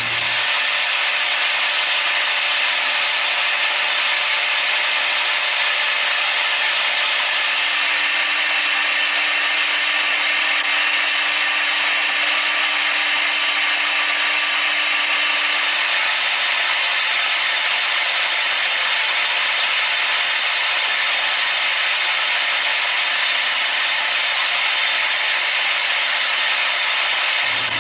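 CNC machine tool cutting metal: a steady, dense grinding hiss, with a faint low hum from about 8 to 16 seconds in.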